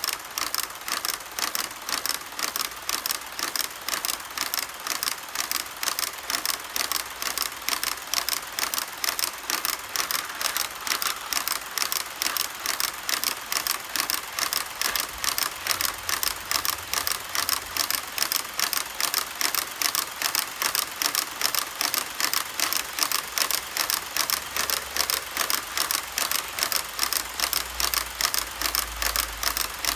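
HO scale model freight cars' wheels clicking over the rail joints as a long train rolls past, a steady run of about three to four sharp clicks a second. A low hum comes in briefly in the middle and again near the end.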